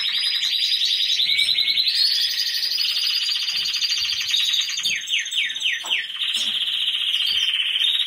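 Caged canaries singing: a continuous stream of rapid trills, with a run of quick falling notes a little past the middle.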